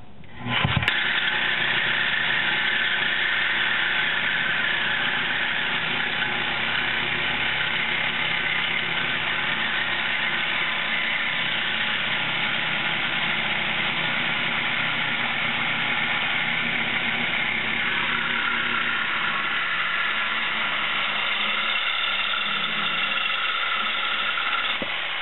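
Reciprocating saw cutting through a car's exhaust pipe, its motor running steadily throughout the cut. It starts about a second in and stops near the end.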